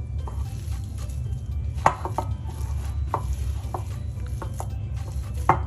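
A hand squeezing and rubbing sliced onions with gram flour in a ceramic bowl, working the onions to draw out their water for the pakoda batter. About five sharp clicks and knocks against the bowl sound over a steady low hum, the loudest about two seconds in.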